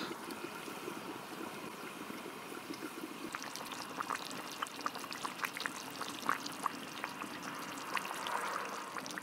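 Stew simmering in a cast iron pot over a wood fire: a steady bubbling hiss with small scattered pops and crackles, more of them from about three seconds in.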